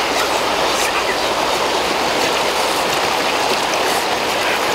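Fast-flowing river rushing steadily over rapids, a constant even wash of water noise.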